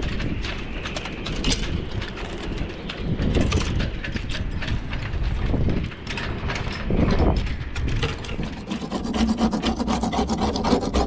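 Scraper blade scraping at the wooden frame of a deck hatch opening, with irregular rubbing and scraping as old material is worked loose. About two-thirds of the way in it turns to quick, rapid scraping strokes.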